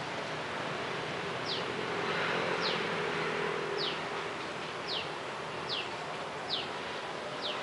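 Outdoor ambience: steady background noise with a short high chirp falling in pitch, repeated about once a second from a little way in.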